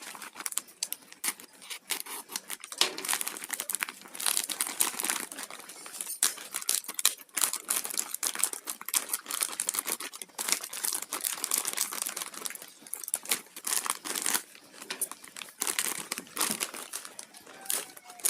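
Packaging crinkling and tearing as a courier parcel is opened by hand, with dense irregular crackles throughout.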